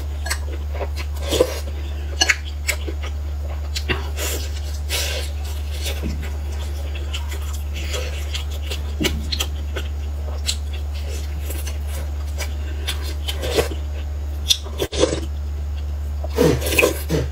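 Close-miked eating sounds: chewing a pan-fried filled pancake (xianbing), with scattered lip smacks and soft crunchy bites. Near the end comes a slurp of soup from a spoon. A steady low hum runs underneath.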